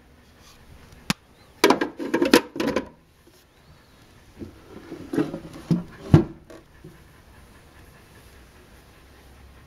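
Ice cubes clattering in a plastic blender jar, with a sharp click about a second in and a few scattered knocks ending in a heavier thump about six seconds in. The blender motor is not yet running.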